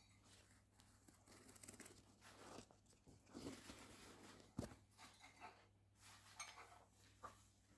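Faint crinkling and rustling as a puppy noses through crumpled balls on a treat-search board, with one sharp tap about four and a half seconds in.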